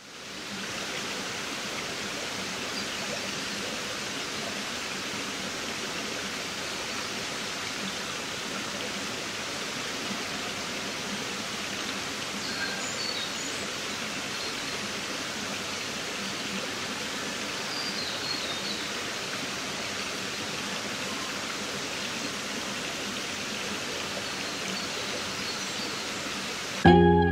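Shallow stream water flowing and splashing over rocks, a steady rushing sound.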